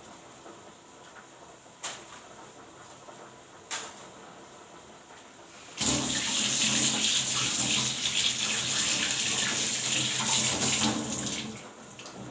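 A kitchen tap is turned on and water runs steadily for about six seconds, rinsing peeled ginger, then stops. Two light knocks come before the water starts.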